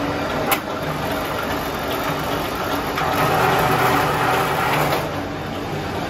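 Electric scrap-wire stripping machine running, its geared motor humming steadily. There is a sharp click about half a second in, and a louder rasping stretch from about three to five seconds as a cable passes through the stripping blades.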